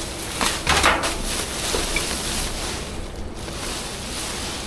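Plastic rubbish bags rustling and crinkling as gloved hands rummage through a bin, with a few louder crackles about half a second to a second in.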